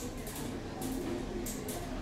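Quiet station ambience heard from the stopped funicular car: a low steady rumble with faint, indistinct voices or music in the background, and short hissing scuffs several times a second.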